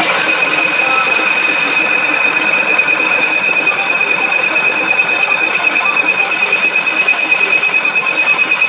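Lathe cutting a steel wheel rim, the tool on the turning metal giving a steady high-pitched squeal over a cutting hiss, with a fast pulsing that grows stronger towards the end.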